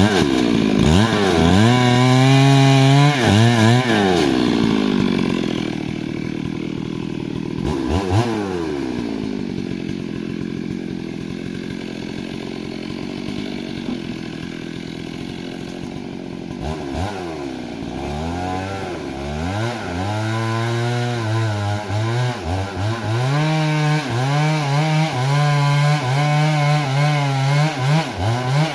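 Stihl MS 382 two-stroke chainsaw cutting timber, its engine pitch swinging up and down as the chain bites into the wood. It runs quieter and lower through the middle, then revs up and down repeatedly again near the end.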